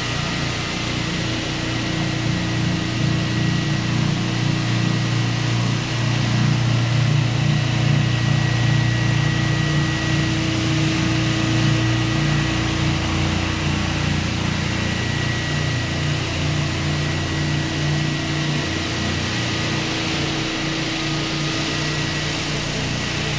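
Hyper Grinders Hyper Orbit random-orbit floor sander running steadily over a wood floor: a constant motor hum and sanding hiss, with a low rumble that swells for several seconds and eases about halfway through.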